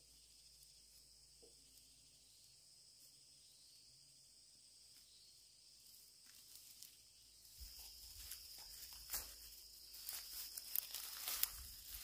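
Steady high insect drone. From about seven seconds in, close rustling and crunching of dry grass and undergrowth, with a few sharp snaps.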